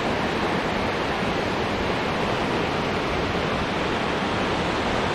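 Swollen, muddy river in flood rushing through rapids: a steady, even roar of water.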